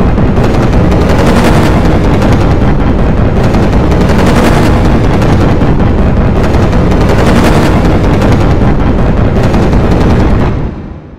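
Dense, distorted wall of sound from many overlapping copies of audio clips stacked in a YTPMV scan edit, loud and swelling every second or two, fading out near the end.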